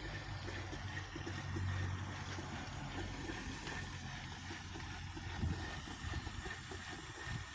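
Live-steam model locomotive in steam on a test stand: a steady hiss of steam with a low running rumble underneath and a few light knocks in the second half.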